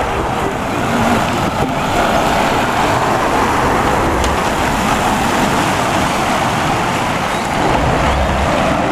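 Steady road-vehicle traffic noise: an even rushing sound over a low rumble, with no clear engine note. It starts and stops abruptly.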